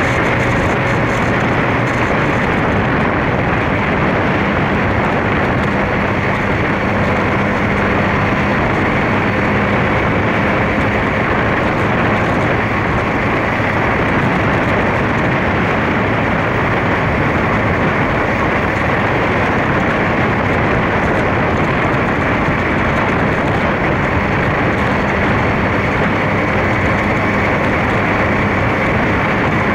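Honda CBR600 F2's inline-four engine running at a steady cruise, picked up by a camera mounted on the motorcycle, under a constant rush of wind and road noise.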